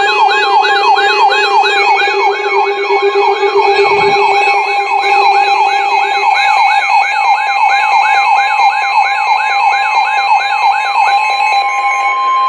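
Weather alert radio sounding a siren-like alarm: a fast warbling whoop, sweeping up and down about three times a second, over steady tones. About 11 seconds in the warble stops and a single steady tone remains, the 1050 Hz NOAA Weather Radio warning alarm tone that announces a warning.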